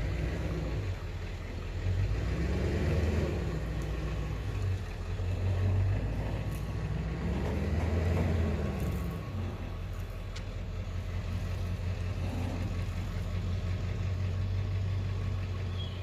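A vehicle engine running at low speed, its pitch rising and falling twice, around three and eight seconds in, as it works to move a heavy load.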